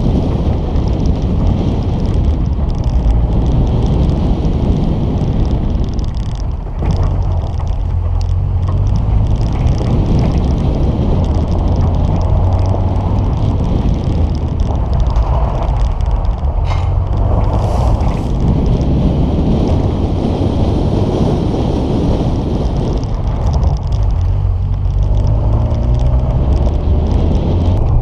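Peugeot 106 engine under hard driving on a dirt track, revving up and dropping back several times as the car accelerates and lifts off, over a steady rush of noise from the tyres and wind.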